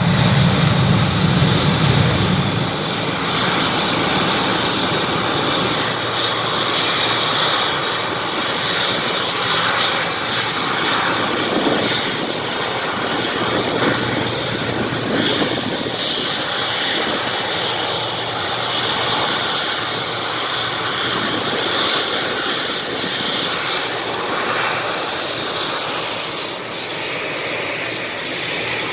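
Snowbird CT-114 Tutor jets taxiing, their single J85 turbojets running with a steady rushing noise and a high whine that grows stronger about halfway through.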